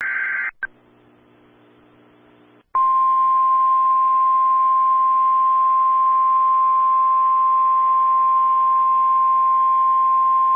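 NOAA Weather Radio emergency alert: the end of the SAME data header's buzzing digital burst, then about two seconds of faint radio hiss and hum. About three seconds in, the 1050 Hz warning alarm tone starts, one steady high tone held without a break.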